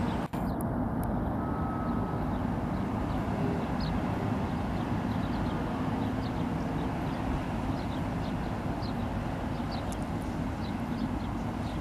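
Steady low rumble of a tug and a large container ship moving through the harbour, with a few faint short chirps above it.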